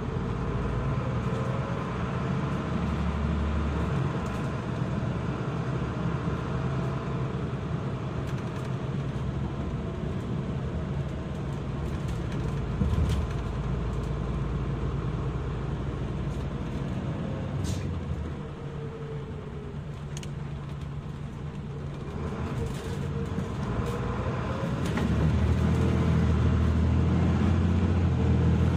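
Mitsubishi Fuso Aerostar city bus's diesel engine and drivetrain heard from on board while driving: a whine rises as it pulls through the gears at the start, and the bus eases off and runs quieter a little past the middle. It then rises again and runs louder under harder acceleration near the end.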